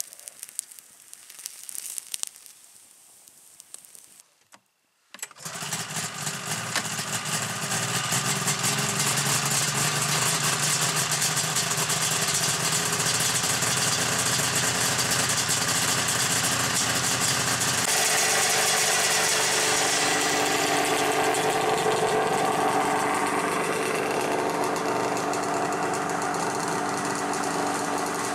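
Campfire crackling for the first few seconds. After a moment of near silence, a Polaris snowmobile engine comes in about five seconds in, builds over a couple of seconds and then runs steadily, its note shifting about eighteen seconds in.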